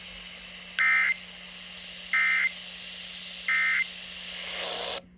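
Emergency Alert System end-of-message data bursts: three short, identical warbling digital tone bursts about a second and a half apart, over radio hiss and a steady low hum, marking the end of the severe thunderstorm warning. The audio cuts off just after the third burst.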